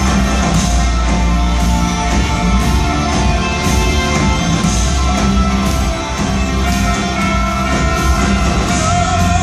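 Live church worship band playing a mostly instrumental passage on electric guitars, bass and drum kit, with regular drum and cymbal strokes.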